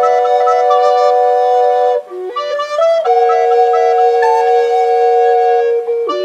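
Ensemble of recorders in several parts playing held chords, with a short passage of quicker moving notes about two seconds in before the chord is held again.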